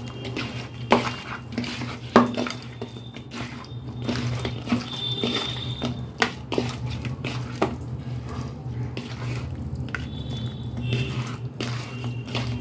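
Raw chicken pieces being mixed into a wet marinade in a bowl, with irregular squelching and the clink and knock of the bowl, under a steady low hum.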